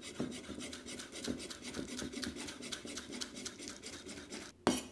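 Chinese cleaver finely slicing spring onion into matchsticks on a round wooden chopping block: a quick, even run of light chopping strokes, with one louder knock near the end.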